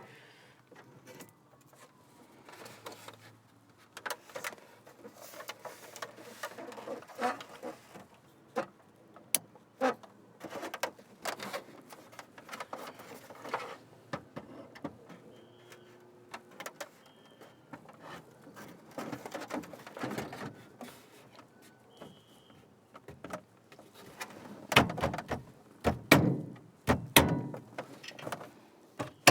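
Hard plastic overhead console and its retaining clips being handled and fitted into a truck headliner: scattered clicks, taps and light knocks with a few faint squeaks. In the last few seconds comes a run of louder knocks, the clips being pushed home.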